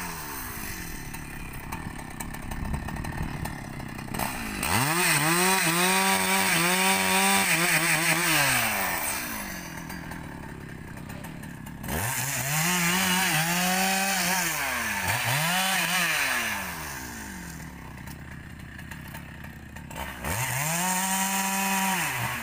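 Husqvarna 395 XP two-stroke chainsaw cutting rubber-tree logs. It revs up to full throttle about four seconds in, again about twelve seconds in with a couple of short blips, and once more near the end, dropping back to idle between cuts.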